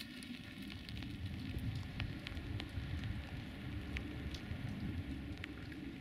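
Light rain outdoors: irregular raindrop ticks over a low, uneven rumble.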